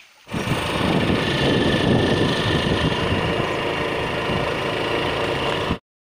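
Motorcycle engine running while riding, with wind rushing over the microphone; the sound starts suddenly just after the start and cuts off abruptly near the end.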